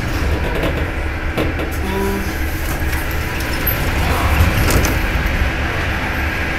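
Steady low rumble of an Ezh3 Moscow Metro subway car heard from inside, with a few sharp clicks and knocks and a short hum about two seconds in.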